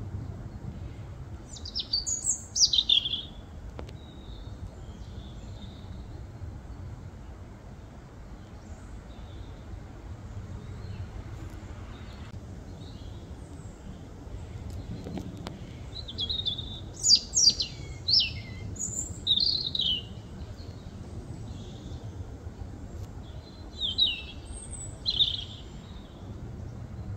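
European robin singing: short, high, warbling phrases of quick gliding notes, about two seconds in, again past the middle and near the end, with long pauses between. A low, steady background rumble runs underneath.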